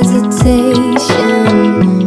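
Background music with sustained tones and a regular deep beat.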